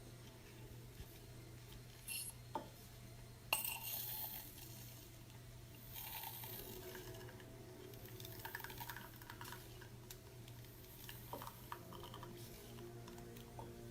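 Faint clinks and light knocks of small hard parts of a portable hand espresso maker being handled, with a soft rustle of handling between them.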